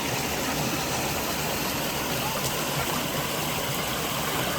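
Mountain valley stream rushing steadily, a continuous even wash of water noise.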